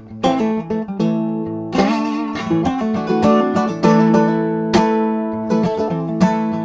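Acoustic guitar played with a slide: picked notes and chords ring on, some of them wavering and gliding in pitch under the slide.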